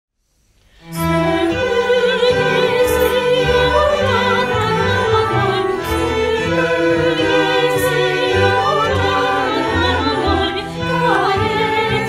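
A student choir and youth string orchestra with clarinet begin a polyphonic arrangement of a Turkish folk song (türkü) about a second in. Voices sing with vibrato over violins, cellos and double basses.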